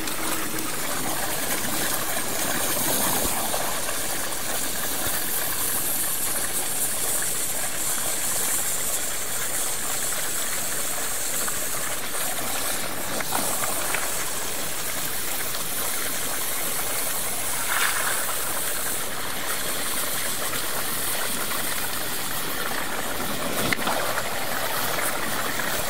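Oxy-propylene cutting torch on a CNC table hissing steadily as its oxygen jet cuts through steel plate.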